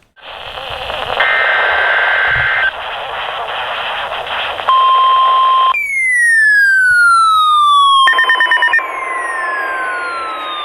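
NOAA Weather Radio reception: receiver hiss with a short burst of digital data tones about a second in, then a steady alert tone near 1 kHz. From about 6 s, slowly falling whistling tones sweep down again and again over the signal, with another fast-pulsing data burst around 8 s before the steady tone returns.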